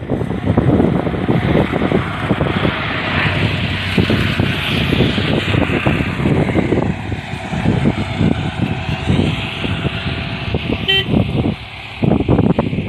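Outdoor traffic noise with wind buffeting the microphone, and a short run of high beeping toots about eleven seconds in.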